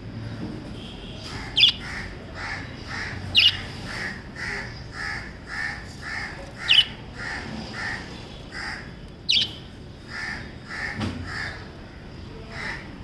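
Small pet parrots calling: a steady run of short chirps, about two a second, broken four times by a loud, sharp call that sweeps downward in pitch.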